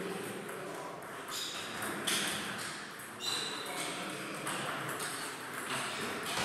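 Table tennis point: the celluloid ball clicking off rubber bats and the table, the hits coming about a second apart from just over a second in.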